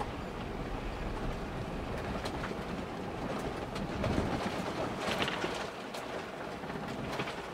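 Ford Bronco driving slowly along a rough gravel trail, heard from inside the cabin: a steady rumble of tyres on gravel with scattered clicks and rattles, and a burst of louder clatter about four to five seconds in.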